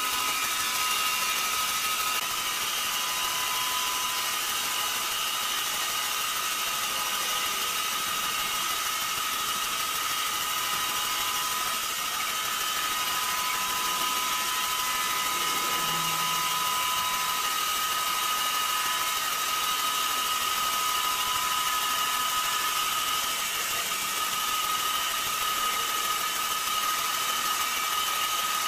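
Horizontal band sawmill running: a steady machine whine over an even high hiss.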